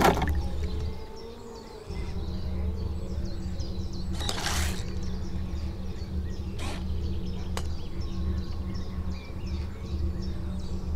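Carp-fishing bait boat's electric motor humming steadily, cutting out for about a second early on and then running again. About four and a half seconds in there is a short rush as the hopper drops its pellets into the water, and faint bird chirps sound throughout.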